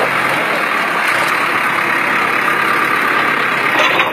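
Diesel engine of a backhoe loader running steadily at close range.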